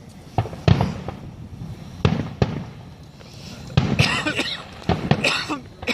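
Fireworks going off: a series of sharp bangs, a few close pairs, then clusters of crackling about four and five seconds in.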